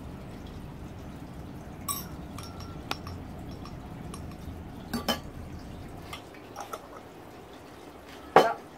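Metal spoon clinking against a small glass jar of soy sauce, a few light separate taps, with one louder knock near the end.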